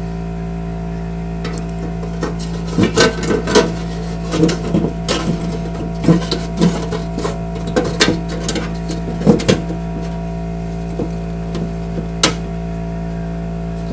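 Wire-mesh grate rattling, clicking and scraping against the steel walls of an ammo can as it is worked into place past the screws, with a sharp click near the end. A steady hum runs underneath.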